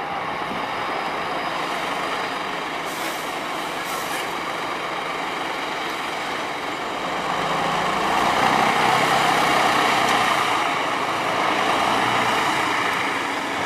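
Diesel engine of a Tatra 813 8x8 trial truck running steadily, with two brief air hisses about three and four seconds in. The engine grows louder about halfway through as the truck works over the sand mounds, then eases slightly near the end.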